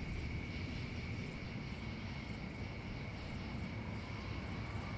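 Night ambience: insects chirping in short, very high pulses, about two or three a second, over a steady thin high tone and a steady low rumble.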